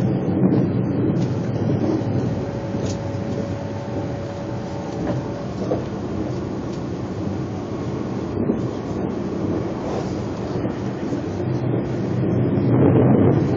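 Narita Express (E259 series electric train) running at speed, heard from inside the passenger car as a steady rumble. A faint steady tone runs through the first five seconds or so, and the rumble grows louder near the end.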